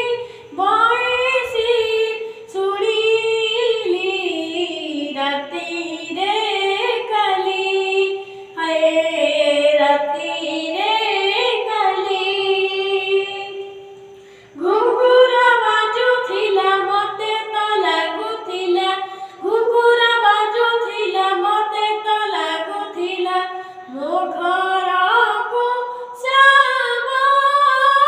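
A child singing a devotional bhajan solo, without accompaniment, in long held phrases with wavering pitch, with a short pause about halfway through.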